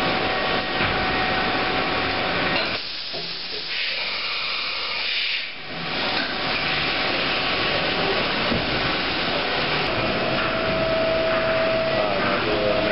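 DMG 160 CNC machining center running its axes: a steady hiss over machine rumble, the rumble dropping away for a few seconds about three seconds in. A steady whine joins about ten seconds in and wavers briefly near the end.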